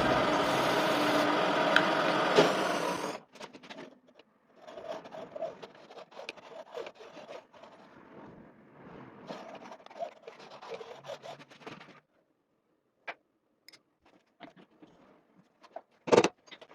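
Lathe workshop sounds: a loud steady machine noise that stops about three seconds in, followed by irregular rubbing and scraping on a workpiece, then a few scattered clicks and one sharp knock near the end.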